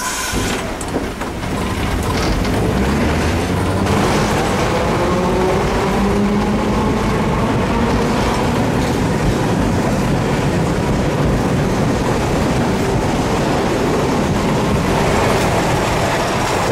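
Hiroden type 100 streetcar running, heard from inside its wooden car body: a steady rumble of the wheels on the rails with a traction-motor whine that rises slowly in pitch during the first few seconds as the tram gathers speed, then holds steady.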